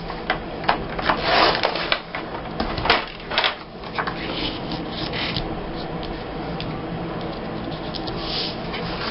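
Paper and scrapbooking supplies being handled on a work table: scattered light taps and clicks, with a few short rustles of paper being moved and laid down.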